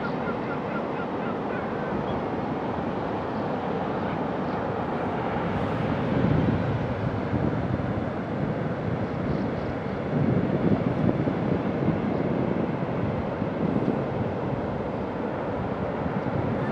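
Pacific Ocean surf breaking on a sandy beach: a continuous wash of waves that swells louder about six seconds in and again around ten seconds.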